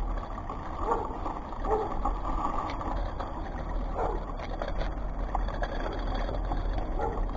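Steady wind rumble buffeting the camera's microphone in gusty pre-storm weather, with faint short voice-like calls now and then.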